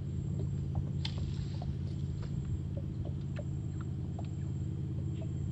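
Steady low motor drone, with a few faint small clicks over it.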